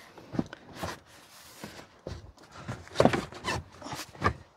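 Knocks and rustling from a rear seat backrest being pushed down into its clips at the bottom, with a cluster of louder knocks about three seconds in and another near the end.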